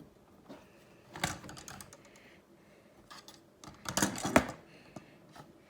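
Plastic clicks and clatter of a Lego gyrosphere being handled and moved along its plastic track: a short run of clicks a little over a second in, and a louder cluster around four seconds.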